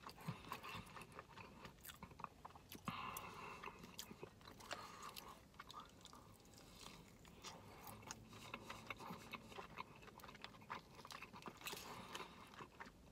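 Faint chewing of a breaded fried chicken strip: soft crunches and many small mouth clicks.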